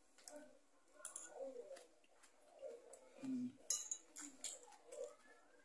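Quiet chewing, with a fork and spoon clinking and scraping on a plate; the brightest clinks come about one, four and five seconds in. A brief low hum from the eater a little past three seconds.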